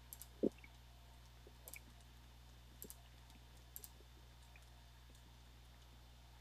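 Computer mouse clicking: about four quick press-and-release pairs roughly a second apart, stopping after about four seconds, over a faint steady low hum. About half a second in there is one louder, low thump.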